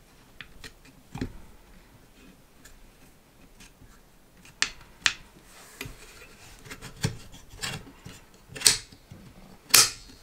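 Folding laptop stand being handled, its hinged arms folded and pressed, giving a series of sharp clicks and light knocks. The two loudest clicks come near the end.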